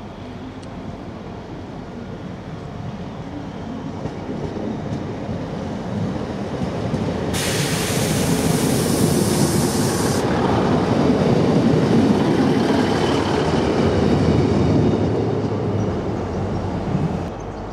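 Class 150 Sprinter diesel multiple unit running past along a station platform, its engine and wheel rumble growing steadily louder as it draws level. About seven seconds in there is a hiss that lasts about three seconds. The sound cuts off suddenly near the end.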